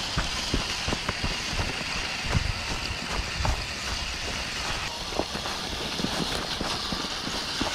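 Dry leaf litter crackling and crunching under a Traxxas TRX-4 RC truck's tyres as it drives over it: many small irregular crunches over a steady hiss.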